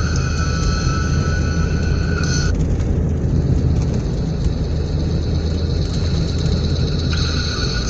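Steady low rumble of a car being driven, heard from inside the cabin. Over it a set of steady high tones cuts off about two and a half seconds in and returns near the end.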